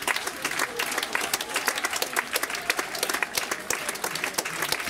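Audience applause: many people clapping in a dense, steady patter.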